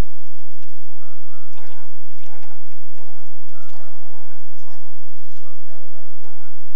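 Repeated short animal calls, one or two a second, with faint sharp clicks between them.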